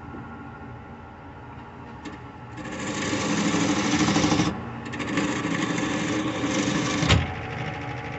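Wood lathe running while a turning tool cuts the tenon off the base of a spalted birch bowl: a steady hum, then a loud rasping cut in two stretches starting about two and a half seconds in. Near the end the cut stops suddenly with a knock as the bowl is knocked askew on its reverse mount.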